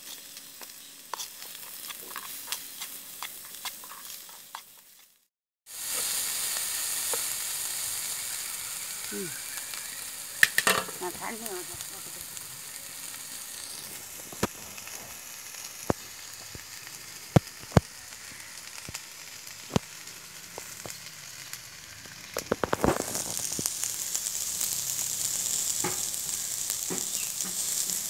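Chopped vegetables sizzling in hot oil in a shallow frying pan over a wood fire, with scattered sharp clicks. The sound cuts out briefly about five seconds in, comes back louder, and grows louder again near the end.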